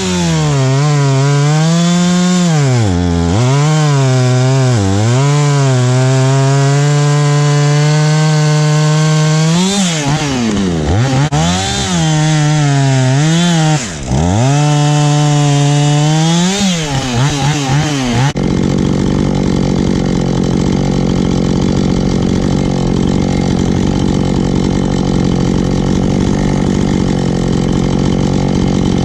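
Husqvarna 450 Rancher two-stroke chainsaw running at high revs while cutting wood, its pitch sagging and climbing back again and again as the chain bogs down in the cut and frees up. About two-thirds of the way through, the sound changes abruptly to a steadier, rougher engine run at a constant pitch.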